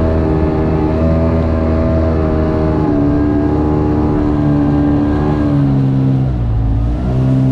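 Boat's outboard motor running under way, its pitch easing down over a few seconds, dipping briefly near the end, then picking up again.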